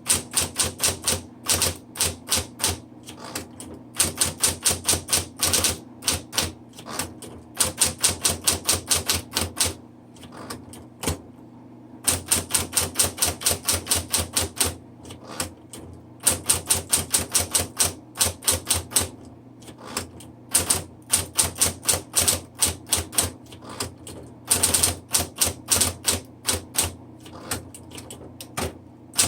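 A 1960s Smith Corona Electra 110 electric typewriter being typed on: quick runs of sharp keystrokes, several a second, broken by short pauses, over the steady hum of its running motor.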